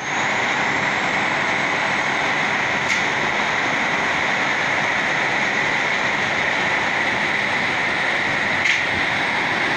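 Fire engine (E-One Typhoon) running in its station bay: a steady, even hiss-like noise with no siren, with two brief clicks, one about three seconds in and one near the end.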